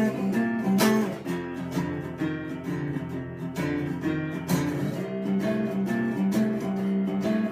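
Acoustic guitar being strummed and picked, playing an instrumental passage between sung lines of a slow song.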